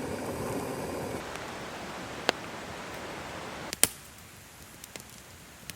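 Steady rush of wind and light rain outdoors, with two sharp taps a little over two seconds and about four seconds in; the rush drops away after the second tap.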